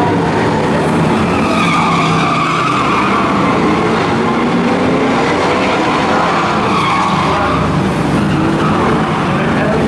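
Several stock cars' V8 engines running and revving on the oval, with tyres squealing.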